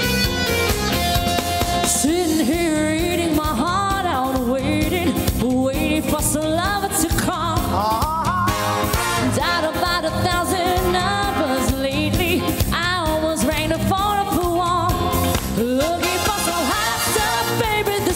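A woman singing a pop song live into a microphone over instrumental accompaniment. The voice comes in about two seconds in, after a short instrumental lead-in.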